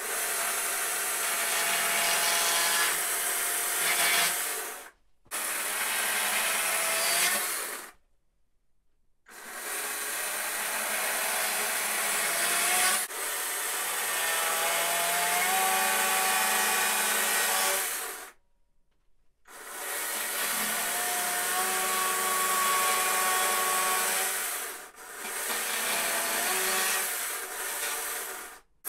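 Chainsaw with a dime-tip carving bar running and cutting thin, shallow cuts into a block of wood, its pitch dipping and rising under load. The sound is broken by a few abrupt gaps.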